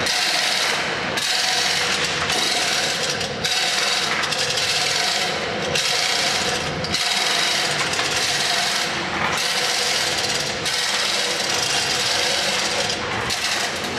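A hand-operated chain block being worked, its chain rattling through the block in repeated strokes with a short pause about every second.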